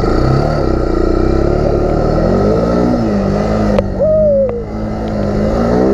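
Small ATV engine running under throttle as the quad rides along a dirt trail, its pitch rising and falling several times as the gas is worked. A brief falling whistle-like tone sounds about four seconds in.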